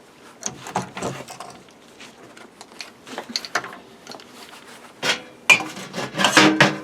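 Metal objects clinking, knocking and scraping against each other in a series of light, irregular knocks. A louder burst of clatter comes near the end.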